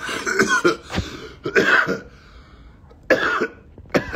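A man coughing hard, several separate coughs in a row, mixed with throat clearing.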